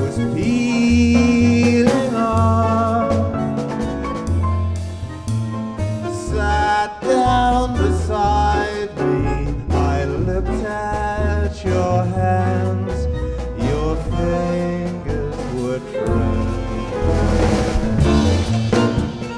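Band music: a bass line stepping from note to note under drums and other pitched instruments.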